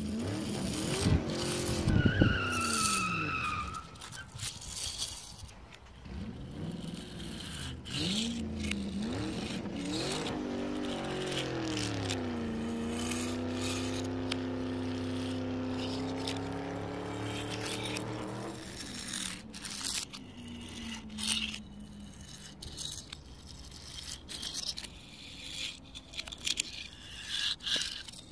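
Car engine sound effect revving up and down, with a short tire squeal about two seconds in, then settling into a steady drone that fades out around two-thirds of the way through. After that, scattered small clicks and scrapes of diecast toy cars being pushed on asphalt.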